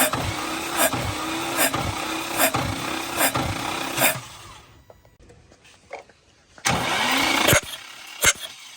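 Nissan 350Z V6 being cranked on the starter motor without firing for a compression test, its starter pitch dipping with a regular beat about every 0.8 seconds. The cranking stops about four seconds in. About seven seconds in there is a brief burst of noise lasting under a second, followed by a click.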